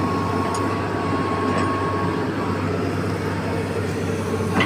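Hitachi hydraulic excavator's diesel engine running steadily, with a thin steady whine over it that fades out about two seconds in.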